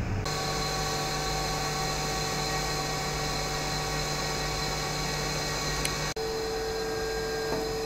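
A steady hum with several held tones over an even hiss. About six seconds in it drops out for an instant and comes back with a different set of tones.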